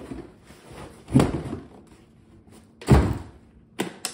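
Cardboard shipping box handled as a hard carrying case is lifted out of it: two loud dull thuds, about one and three seconds in, then two lighter knocks near the end.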